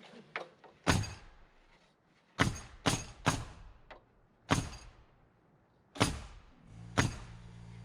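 Hammer blows driving nails into timber framing: about eight single sharp strikes, spaced irregularly, broken by abrupt silences. A low steady hum comes in near the end.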